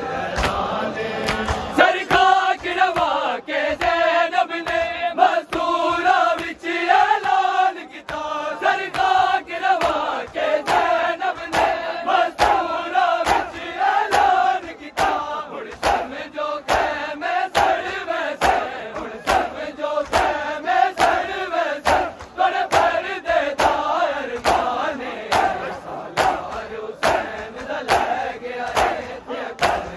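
Large crowd of men chanting a noha, a Shia lament, together, with a steady beat of open-handed chest slaps (matam) running through the chant.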